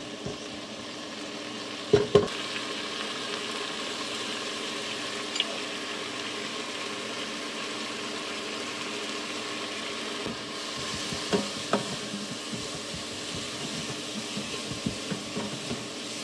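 Green onion, blended bell pepper, coriander and garlic sizzling as they sauté in butter in a pan: a steady frying hiss. A utensil knocks sharply against the pan twice about two seconds in, and again several times near the end as the mixture is stirred.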